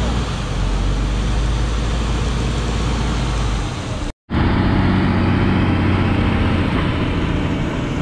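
Fire engine's roof-mounted water cannon spraying a jet of water, a steady rushing noise over the low hum of the engine and pump. About four seconds in it cuts sharply to the fire engine's engine running as the truck drives.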